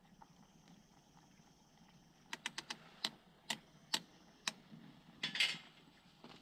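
Wood campfire crackling: an irregular run of sharp pops, then a brief louder hissing burst near the end.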